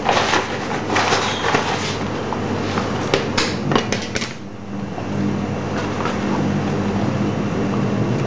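Clatter and knocks of handling on a stainless steel work table, then a steady low mechanical hum from about halfway in.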